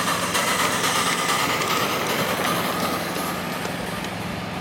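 Ride-on miniature railway locomotive running along the track, with a steady high ringing over a running noise that eases off after about three seconds as it pulls away.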